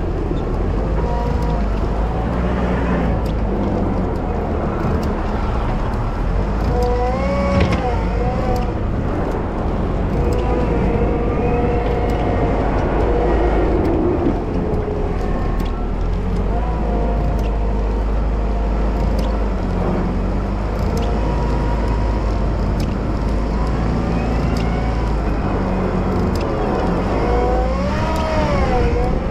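Wheel loader running steadily under load while snow plowing, with a whine that rises and falls in pitch now and then as the machine works.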